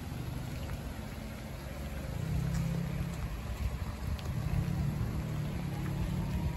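Low, steady engine rumble of a vehicle running nearby. It swells a little about two seconds in and again past the middle.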